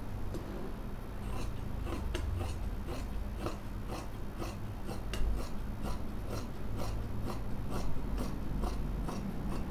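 Large tailor's shears cutting through cloth on a table: a steady run of crisp snips, about two to three a second, starting about a second in.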